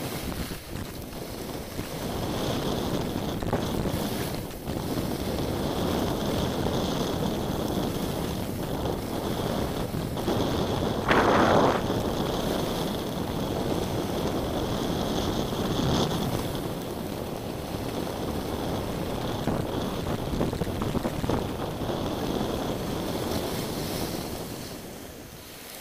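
Wind rushing over the camera microphone and skis hissing over snow during a fast downhill run, with a louder swell about eleven seconds in.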